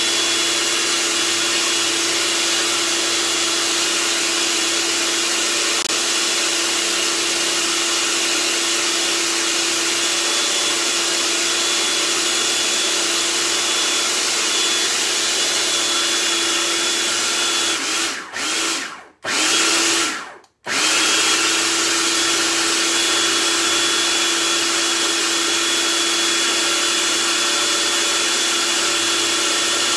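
Food processor motor running steadily, grinding a thick chickpea falafel mixture. A little past halfway it cuts out briefly a couple of times and starts up again, then runs on.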